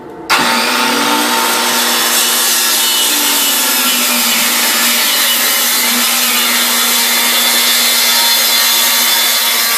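Handheld circular saw switching on and cutting along a long board, its loud whine steady under load.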